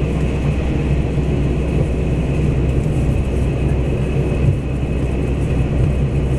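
Steady low rumble inside a passenger car of a TRA DR2800 diesel multiple unit on the move: the underfloor diesel engine running and the wheels on the rails, heard through the carriage.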